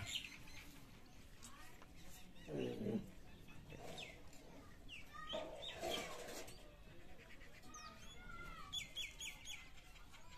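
Young chicken peeping: short high chirps on and off, with a quick run of five or six chirps near the end.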